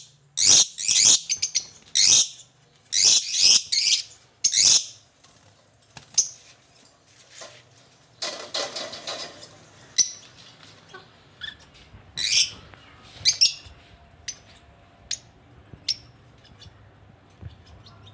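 Lovebird calling in its cage: a rapid run of shrill chirps over the first five seconds, a rustle lasting about two seconds midway, then a few more scattered chirps.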